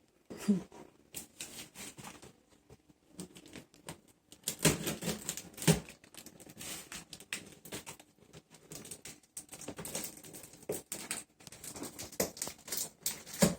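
Irregular clicks, taps and knocks of a shipping box and its packaging being handled and opened, busiest around the middle with one louder knock.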